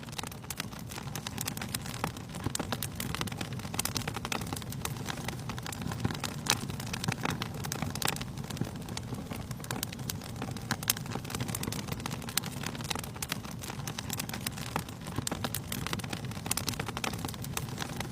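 Fire burning in a fireplace, crackling with frequent irregular sharp pops over a steady low rush of flame.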